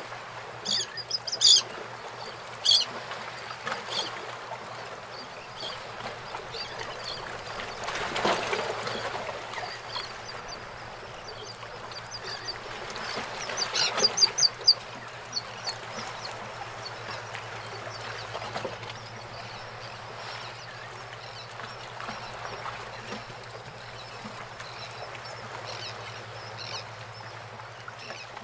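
Seabirds calling in short bursts of high calls over the lap and wash of bay water around the pier pilings, with a steady low hum underneath. The calls come in flurries near the start and again about halfway through.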